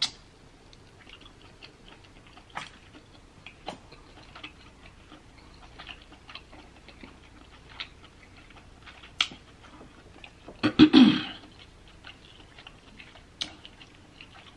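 Close-miked eating mouth sounds: scattered soft wet clicks and lip smacks from chewing king crab meat and licking fingers, with one louder, longer smack about eleven seconds in.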